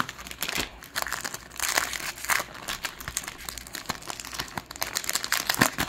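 Foil wrapper of a Topps 2024 Series 1 baseball card pack crinkling and tearing as it is ripped open by hand, a dense run of irregular crackles that gets a little louder near the end.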